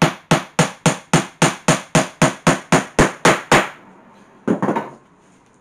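A hammer driving a nail into a wooden frame: a quick, even run of about fourteen blows, roughly four a second, that stops about three and a half seconds in. A brief clatter follows about a second later.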